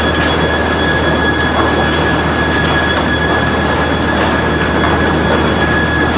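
Newman FT1600 feed table running: its overhead tensioning rolls and chain conveyors carry boards of lumber toward a planer matcher. The machinery makes a loud, steady noise with a low hum and a steady high whine, and a few light ticks.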